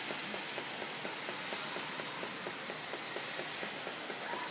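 Steady rain falling during a thunderstorm: an even hiss dotted with many small drop taps, with no thunder.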